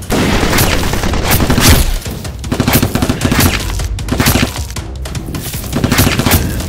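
Volleys of rapid gunshot-like firing from blaster sound effects, in several bursts, over a background music track with a beat.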